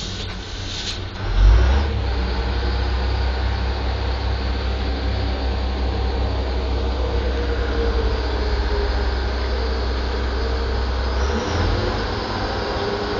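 Yarder engine running in the cab. After short horn blasts in the first second, a deep, heavy rumble comes in about a second and a half in as the machine is worked from the levers, and holds steady until it eases off near the end.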